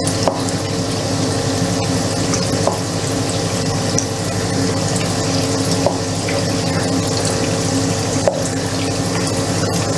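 Gram-flour-battered potato patties (aloo chop) frying in hot oil in a frying pan: a steady sizzle, with a few light taps of a wooden spatula against the pan as the patties are turned.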